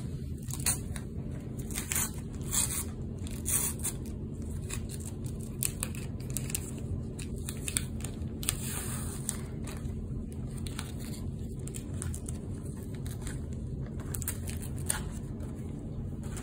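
A wrapper on a pack of NBA stickers and cards crinkling and tearing as it is ripped open by hand, with the cards and stickers rustling as they are handled. Sharp, irregular crackles sound throughout over a steady low hum.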